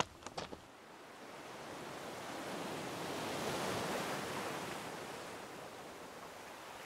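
A wave washing on a pebble shore: a rushing hiss that swells for a few seconds and fades away, with a few light clicks at the start.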